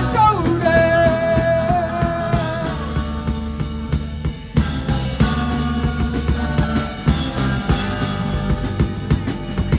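Live rock band with electric guitars, bass and drum kit playing. A long held note sounds over the band in the first few seconds; after a short dip just past four seconds the drums come back in with steady hits under the guitars.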